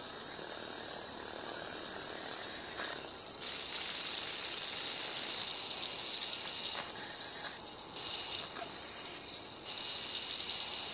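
A chorus of many cicadas buzzing together in a steady, shrill, high-pitched drone, growing louder for a few seconds at a time as more calls join and drop out.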